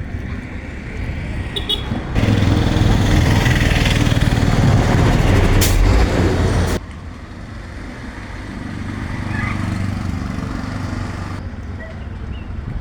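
Steady mechanical noise with a louder, harsher stretch of about four and a half seconds. It starts about two seconds in and cuts off abruptly, with a sharp click shortly before it ends.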